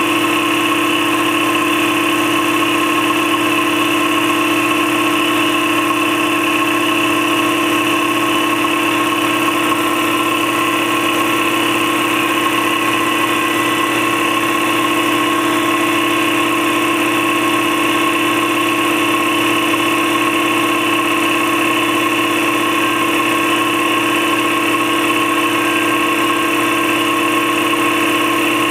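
Campbell Hausfeld 60-gallon air compressor running steadily, its twin-piston pump and 3.2 hp 240-volt motor building tank pressure toward the 135 psi shutoff.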